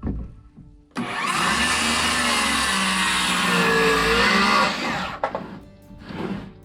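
Electric power saw cutting through a 2x4: the motor starts suddenly about a second in, runs for nearly four seconds with its pitch sagging under the cut, then winds down.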